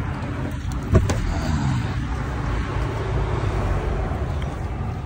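Car engine running at a steady idle, a low even hum, with one sharp knock about a second in.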